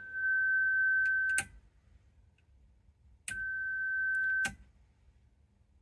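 Kenwood TS-830S transceiver being switched on and off the air: a steady high tone from the radio, twice, each about a second long and each starting and ending with a sharp click, with silence between.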